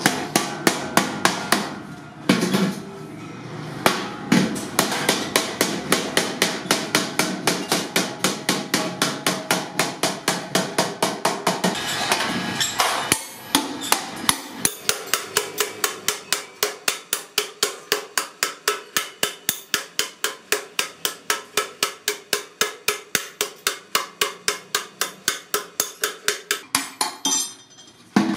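Hand hammer striking a sheet-iron milk can body against an iron anvil block, about three to four quick metallic blows a second in a steady rhythm. There is a short pause about two seconds in and a brief break near the middle.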